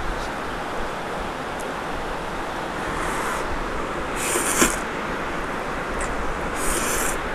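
A person slurping Maggi curry instant noodles off chopsticks, three slurps about three, four and a half, and nearly seven seconds in, the middle one the loudest, over a steady background hiss.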